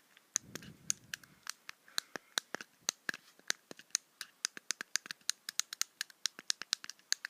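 Fidget Cube clicker buttons pressed over and over: a rapid, uneven run of small sharp plastic clicks, several a second, some louder and some softer as different buttons are tried for the quietest one.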